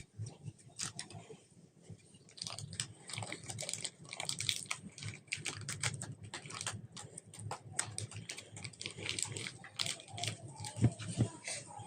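Slime being squished and kneaded by hand, a dense run of small sticky clicks and crackles, with a few soft low thumps near the end.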